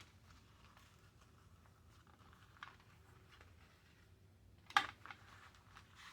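Quiet hand handling of a paper journal while elastic cord is threaded through a metal eyelet: faint rustles and small ticks, with one sharper tap just under five seconds in.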